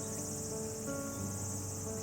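Steady, high-pitched chorus of insects calling. Under it, soft sustained chords whose notes change about every second.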